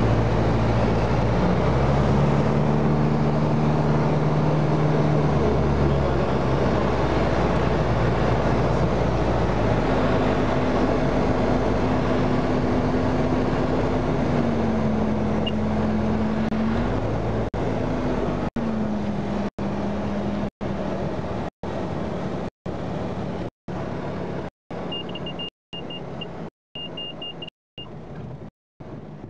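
Light aircraft's piston engine and propeller droning in the cockpit, its note shifting in pitch a few times. From about two-thirds of the way through, the sound is cut by regular gaps about once a second, the gaps lengthening as it fades, and near the end a short run of high beeps sounds.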